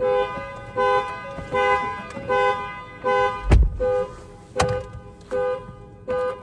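Ford F-150's factory alarm sounding the two-note horn in a string of about nine short honks, a little faster than one a second, set off by the door being opened. Two sharp knocks come near the middle.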